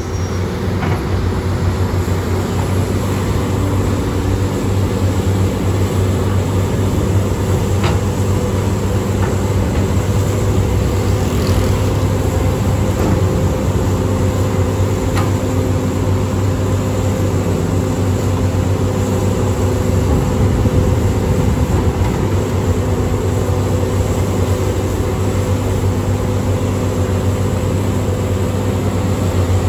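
Heavy diesel construction machinery running steadily, a constant low engine hum, with a few faint knocks.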